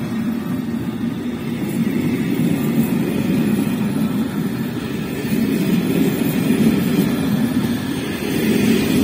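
Passenger train coaches rolling past at close range, giving a steady low rumble of wheels on the rails.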